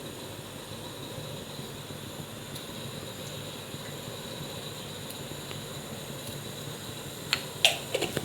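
Steady background hiss with a faint high whine, and a few quick clinks of kitchen utensils near the end.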